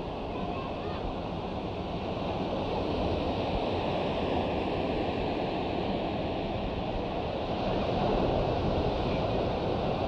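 Beach ambience: a steady wash of surf that swells slightly a couple of times, with faint voices of people around.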